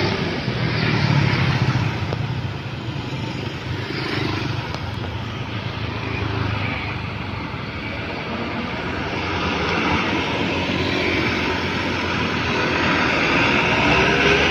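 Road traffic passing: motorcycle and truck engines running. A small dump truck's diesel engine grows louder toward the end as the truck passes close.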